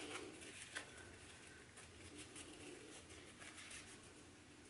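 Near silence with faint rustling and small ticks of fabric and webbing being handled, as a small sewn strap-attachment piece is turned right side out.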